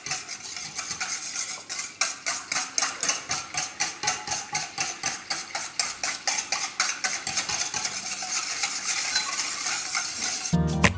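Wire whisk beating milk and instant vanilla pudding mix in a stainless steel mixing bowl: fast, steady strokes, about five a second, the wires clicking and scraping against the metal bowl. Acoustic guitar music comes in just before the end.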